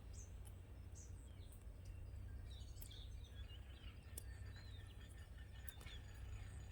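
Faint background with a steady low hum and scattered short bird chirps, with a few faint clicks.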